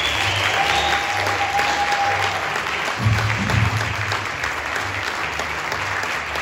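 Audience applauding, with music still playing underneath.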